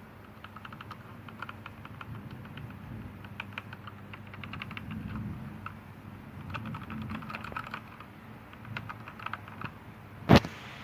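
Typing on a DAREU EK87 V2 mechanical keyboard: a quick, irregular run of key clicks. Near the end comes a single loud, sharp knock.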